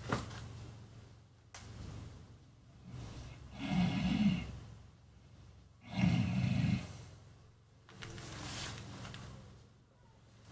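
A man asleep and snoring, with a breath about every two seconds; two loud snores come about four and six seconds in, the others softer.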